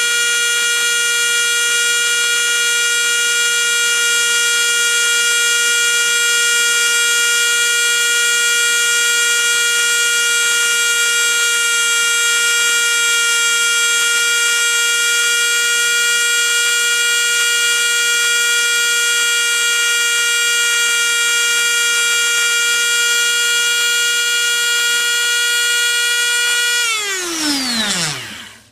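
Dremel rotary tool with a fine lapping wheel running at a steady high-pitched whine, lapping a clock pivot to a mirror finish. Near the end it is switched off and its pitch falls as it spins down.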